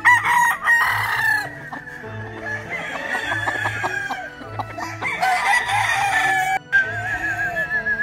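Gamefowl rooster crowing twice: a long crow at the start and another about five seconds in that cuts off short. A steady music beat runs underneath.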